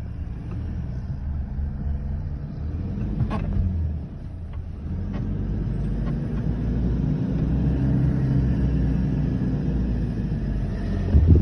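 Toyota off-road vehicle's engine running with a low rumble as it drives on sand dunes, its pitch rising and falling gently about halfway through. A sharp knock about three seconds in and a loud thump at the very end.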